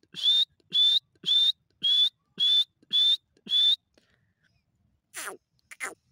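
Dakhni titar (grey francolin) calling: a run of seven loud, rising whistled notes at about two a second, stopping about four seconds in. Two shorter, falling calls follow near the end.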